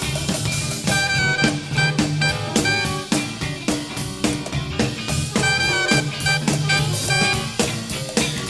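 Live jazz-funk band playing, from a cassette tape: a drum kit keeps a busy steady beat under a bass line and sustained saxophone phrases.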